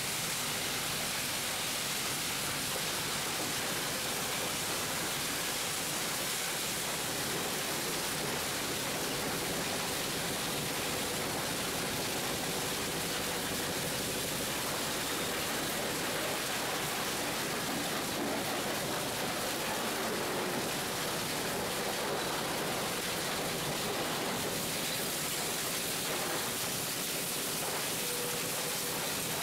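Scrap-metal shredder line running, with scrap fed in on the infeed conveyor: a steady, dense noise with no distinct strokes.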